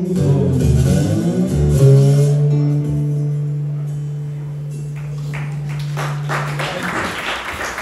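Acoustic guitar playing the closing phrase of a blues song, ending on a low note that rings steadily for about five seconds. Audience clapping starts near the end.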